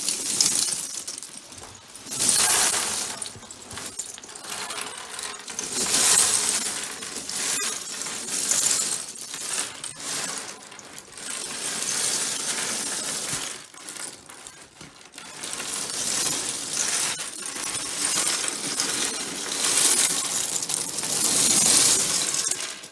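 A large mass of plastic LEGO minifigures and minifigure parts pouring out of a storage box onto a wooden tabletop, clattering in waves that swell and ease every couple of seconds.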